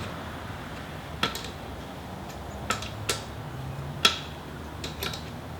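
Scattered light metallic clicks and clinks of tools and parts being handled, about five separate ticks spread over a few seconds, over a low steady hum.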